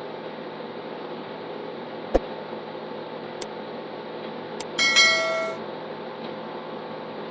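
Steady background hum with a few sharp clicks, then a short bell-like chime that rings for under a second about five seconds in.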